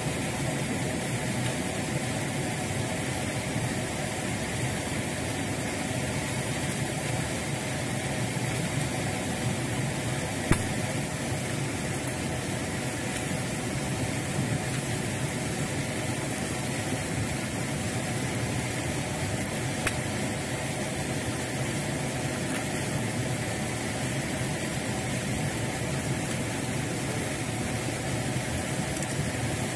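A steady, unbroken drone like a small engine running, with a single sharp knock about ten seconds in.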